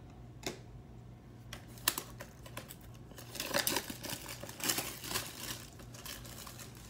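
Plastic shrink-wrap being picked at and torn off a cardboard trading-card box: a few scratchy clicks at first, then from about three seconds in a run of crinkling and crackling cellophane.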